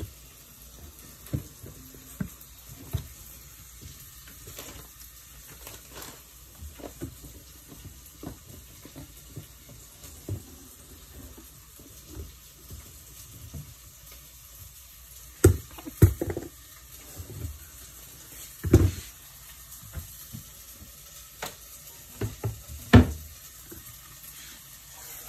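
Ground chicken kemma frying in a pan on the stove, a steady low sizzle. Several sharp knocks and clunks break in, the loudest a little past halfway and again near the end.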